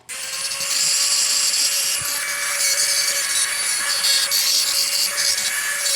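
Electric power tool grinding a steel windshield-wiper insert strip into a lock pick: a harsh, steady grinding with an even motor tone, starting abruptly.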